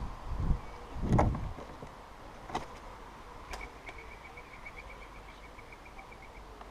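Birds on a bird table close to the camera: two dull thumps and a couple of sharp knocks, then a fast, even trill of about eight notes a second at one high pitch, held for nearly three seconds.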